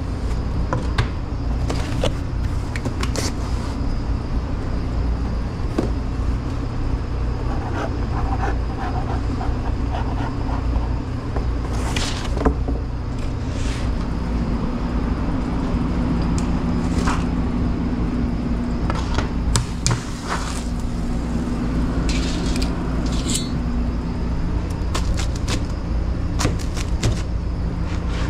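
Steady low hum of commercial pizza-kitchen machinery, the conveyor oven and ventilation fans, with a slightly higher hum added for a while in the middle. Scattered clicks, knocks and scrapes come from pizza boxes and a pizza tray being handled.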